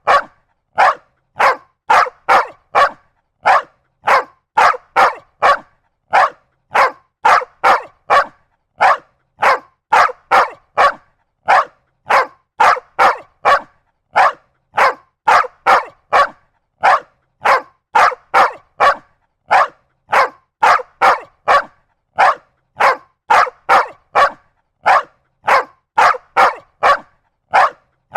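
Big security dog barking aggressively and without let-up, short sharp barks in quick runs of two to four with brief pauses between.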